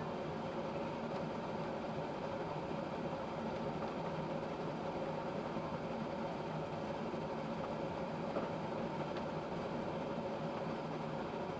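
Steady drone inside a moving bus: road and engine noise with a constant hum.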